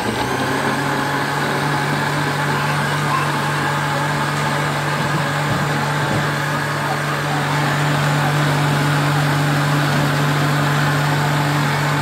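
Countertop electric blender switched on and running at a steady speed, starting abruptly, with a full jar of peanut-butter mixture churning inside.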